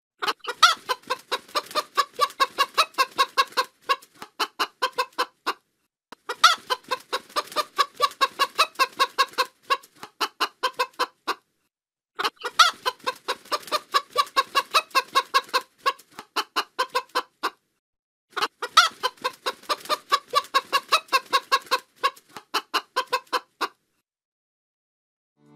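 Hen clucking in quick runs of clucks, in four near-identical bouts about six seconds apart with short silences between.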